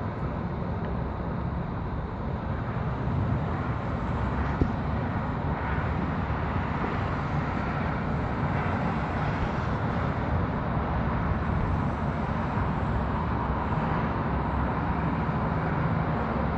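Steady low rumble of distant city traffic, with a faint click about four and a half seconds in.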